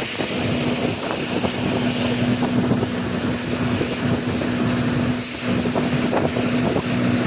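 Motorboat engine running steadily under way, a constant hum, with wind on the microphone and water noise over it.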